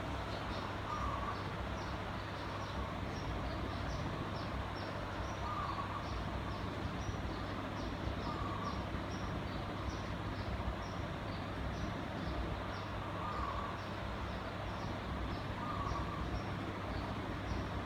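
Vintage 56-inch Sunwindy ceiling fan running: a steady rush of air over a low, even motor hum, with a light regular ticking about twice a second.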